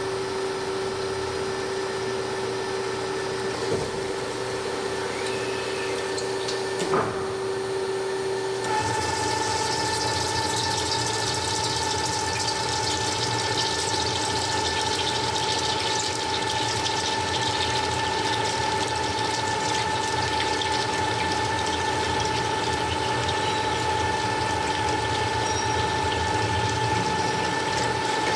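CNC cutting machine running with a steady hum. About seven seconds in there is a single knock; about two seconds later the hum steps up to a higher tone and a loud hiss joins it and holds.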